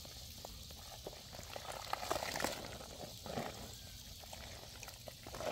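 Wet cloth being squeezed and kneaded by hand in a basin of foamy yellow-clay dye water: soft squelching and sloshing, with a couple of louder splashes about two and three seconds in.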